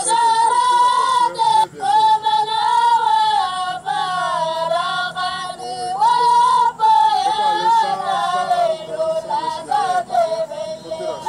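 A boy's high voice singing a slow, unaccompanied melismatic chant, with long wavering held notes and short breaths between phrases. The melody sinks lower toward the end.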